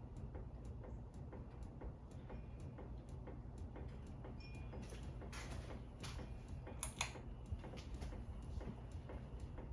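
Harbor Breeze Centreville ceiling fan running with a steady low hum and a regular, even ticking. A couple of louder swishing swells come about halfway through.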